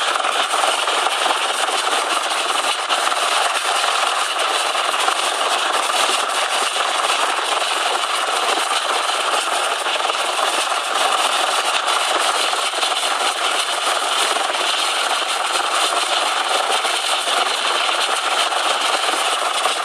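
Search-and-rescue helicopter hovering close overhead, its rotor and turbine engines making a loud, steady noise.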